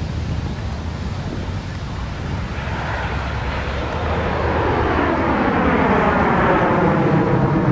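T-33 Shooting Star jet trainer's single turbojet in a close flyby, its jet noise swelling louder from about two and a half seconds in. As it nears overhead the sound takes on a sweeping, falling, phaser-like tone.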